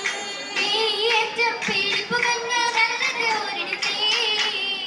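Young voices singing an Oppana song (a Mappila song), the melody gliding and ornamented over a steady held note.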